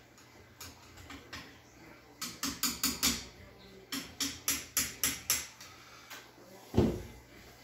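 Two quick runs of sharp snapping clicks from the CRT monitor, about five a second, typical of high-voltage arcing in a set whose tube ground is not hooked to the neck board. One loud low thump comes near the end.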